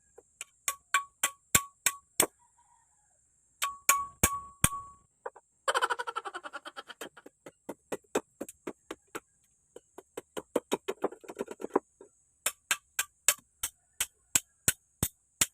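Repeated sharp strikes with a short metallic ring, in runs of about three blows a second, from hand work on a bolo and its new handle. About six seconds in comes a quick rattling run of fast light strokes.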